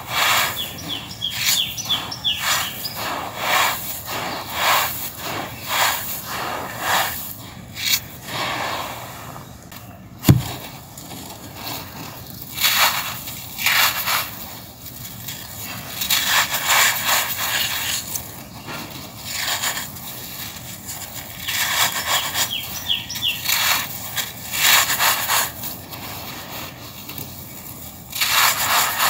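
Dry yellow stone crush being scooped, squeezed and crumbled by hand: gritty crunching and the rustle of grit pouring through the fingers, in repeated handfuls. One sharp click about ten seconds in.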